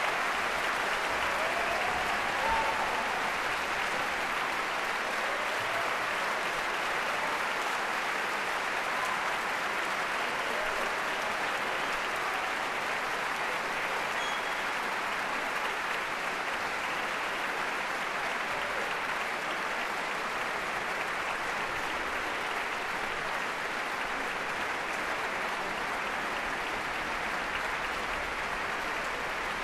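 A large audience applauding, a dense, even clapping that holds steady throughout.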